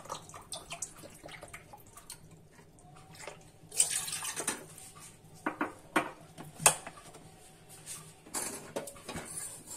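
Water poured from a cup into a stainless steel pot, in short pours with sharp clinks and knocks of metal between them.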